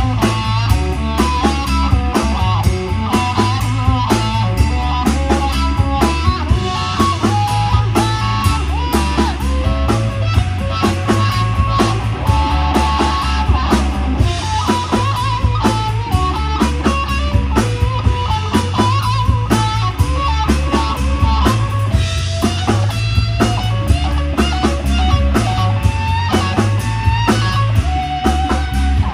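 Live rock band playing an instrumental passage: an electric guitar plays a melodic lead line over bass guitar and a steady drum-kit beat.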